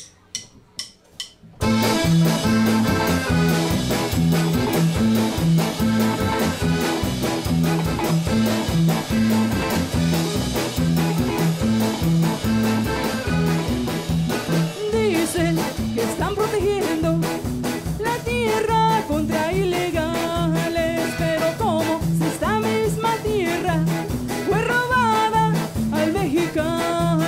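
Background music: a song with a steady beat that starts after a second and a half of faint ticks. A singing voice comes in about halfway through.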